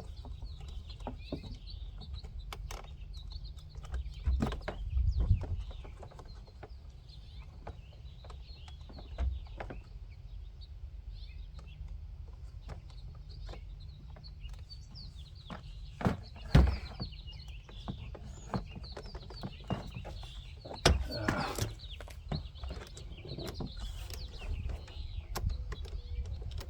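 Scattered clicks and knocks of hands working on car door parts and wiring plugs, loudest about 5, 16 and 21 seconds in, over a low steady rumble with birds chirping in the background.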